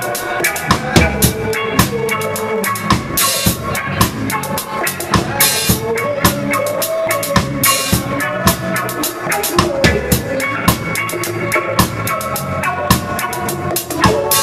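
A reggae band playing, heard close to the drum kit: the kit's kick, snare and cymbals are up front over the rest of the band. There are three longer cymbal hits about 3, 5½ and 8 seconds in.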